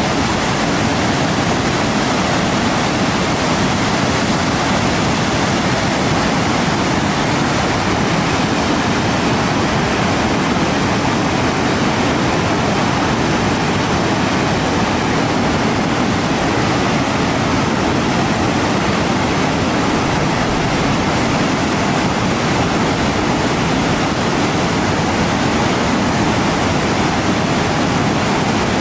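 River in flood pouring over falls and rapids: a steady, loud rush of whitewater.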